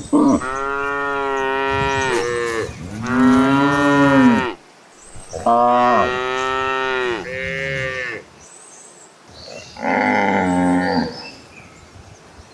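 Cattle mooing: a series of long, drawn-out moos, one after another with short pauses between them.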